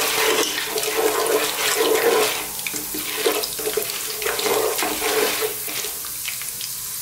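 Chana dal and whole spices sizzling in hot sunflower oil in a pot, stirred with a wooden spoon: a steady frying hiss with small crackles, easing slightly about halfway through.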